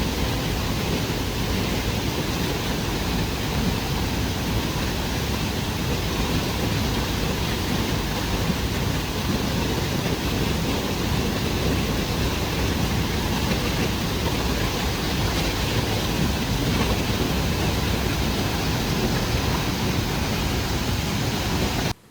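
Waterfall's steady rush of falling water, a dense, unchanging noise that cuts off suddenly at the very end.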